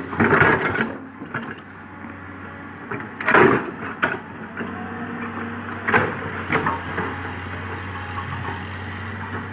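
Komatsu PC200 hydraulic excavator's diesel engine running steadily under load, with several crunching, cracking bursts as the bucket digs into the ground, the loudest about three and a half seconds in.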